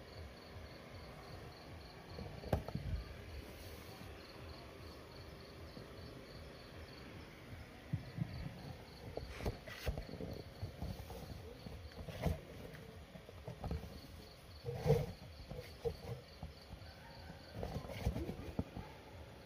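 Crickets chirping steadily, about five chirps a second, with scattered low thumps and rustles of handling, the loudest about fifteen seconds in.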